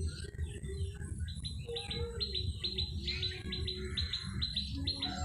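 Small birds chirping in a rapid repeated series, starting about a second in, over a steady low background noise.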